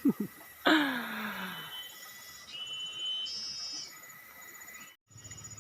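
A man's wordless falling whoop of delight, with two short glides at the start and a loud one sliding down about half a second in. It is followed by faint steady high-pitched tones, and the sound cuts off abruptly near the end.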